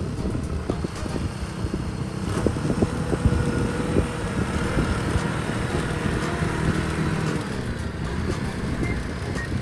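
Engine of a riding rice transplanter running as the machine drives past over a gravel path, with knocking and clattering from its wheels and frame.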